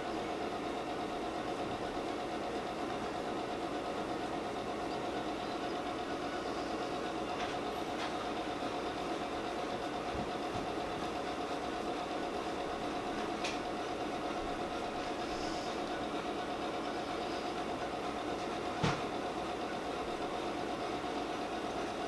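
Steady machine-like background hum carrying a constant mid-pitched tone, with a few faint ticks, the clearest near the end.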